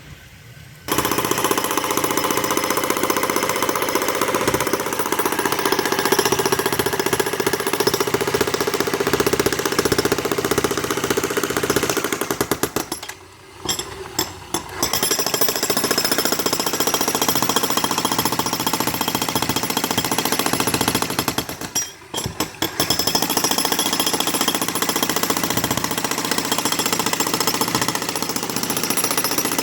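Jackhammer breaking up a concrete pool deck, hammering steadily. It starts about a second in and stops briefly twice along the way.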